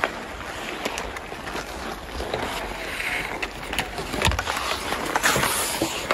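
Hockey skates hissing and scraping on outdoor rink ice, with hockey sticks clacking against the ice and puck several times. A louder swish of skates about five seconds in.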